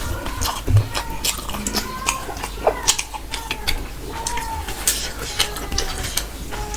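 Close-miked chewing and mouth sounds of a person eating: many quick, irregular wet clicks and smacks.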